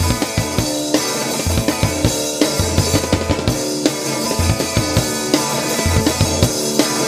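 Background music with a drum kit keeping a steady beat of bass and snare drum hits under held instrument notes.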